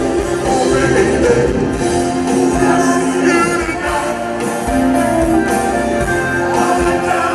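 Live rock band playing, a steady beat under sustained melodic lines.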